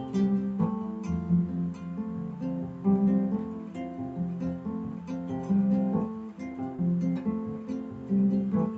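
Kora, the West African calabash-bodied harp, played solo: a repeating pattern of plucked low bass notes under a higher melody.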